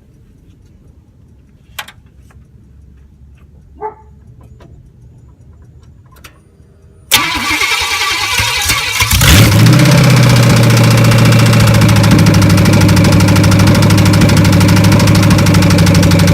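A couple of sharp clicks, then a 1993 Chevy truck engine with open headers is cranked by the starter about seven seconds in. It catches after about two seconds and runs loud and steady, with what the owner calls a rod knock.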